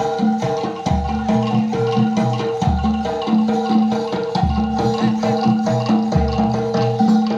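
Jaranan gamelan music: tuned metal percussion and drums playing a repeating pattern over held notes, with a deep stroke about every two seconds.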